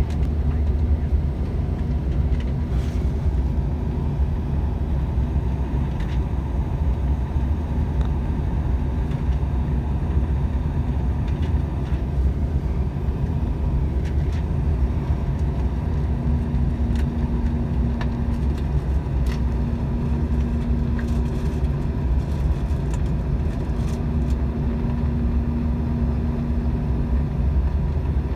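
Steady cabin noise inside a CRJ900 regional jet: airflow and its two rear-mounted GE CF34 turbofans, a deep even rumble with a faint steady whine. A low hum comes and goes several times in the second half.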